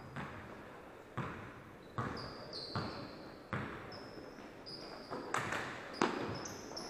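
Basketball bouncing on a hardwood court, a sharp echoing bounce roughly once a second, with short high squeaks of sneakers on the floor in between.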